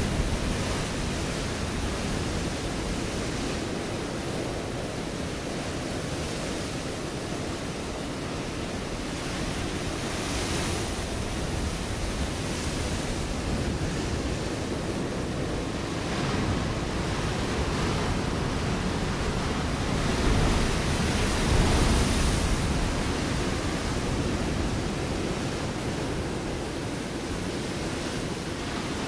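Ocean waves breaking on a rocky shore: a continuous wash of surf that swells and ebbs, loudest about two-thirds of the way through.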